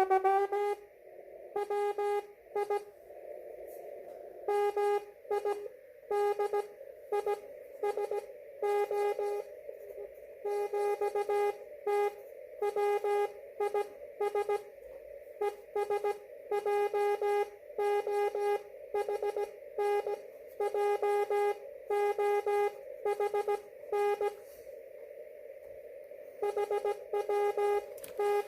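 Morse code on an amateur radio transceiver: a single steady tone keyed on and off in slow dots and dashes, with a narrow band of receiver hiss behind it.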